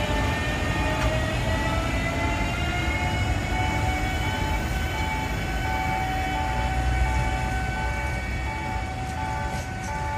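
EF510 electric locomotive's VVVF inverter and traction motors whining under power: several tones climb in pitch during the first few seconds, then level off over a low rumble. Another tone pulses on and off.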